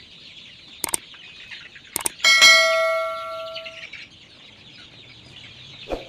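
A flock of kampung chickens clucking and chattering, overlaid with two mouse clicks and then a loud bell ding about two seconds in that rings out for over a second. The clicks and ding are a subscribe-button and notification-bell sound effect, and another click comes near the end.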